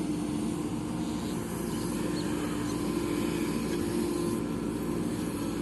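JCB backhoe loader's diesel engine running steadily, a continuous even drone.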